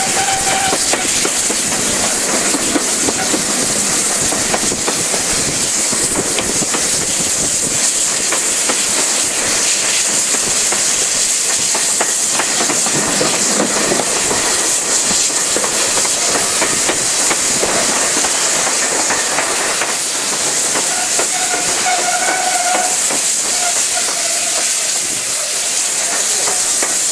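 GWR King class 4-6-0 steam locomotive 6023 King Edward II running, heard from right behind it: a steady loud hiss of steam and rushing air over wheel and rail noise. A brief higher tone sounds near the start and again about three-quarters of the way through.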